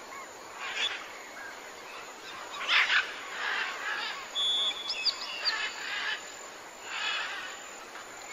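Birds chirping and calling: a scatter of short chirps, trills and whistled notes, some gliding in pitch, over a steady outdoor hiss.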